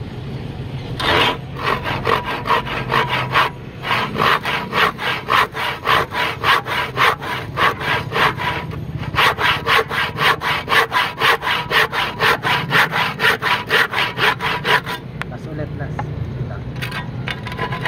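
Freshly sharpened fine-toothed handsaw cross-cutting the end of a wooden board in quick, even strokes, about three a second. There is a brief pause a few seconds in, and the sawing stops near the end after a few last strokes.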